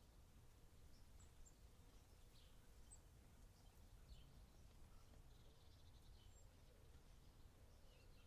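Near silence with faint, scattered bird chirps over a low steady rumble.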